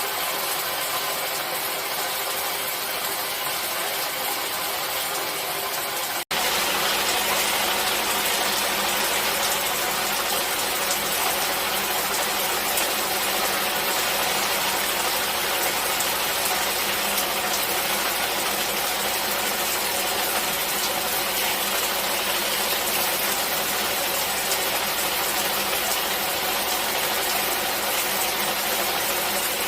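Steady hiss of falling rain. A split-second dropout comes about six seconds in, after which the rain returns slightly louder and fuller.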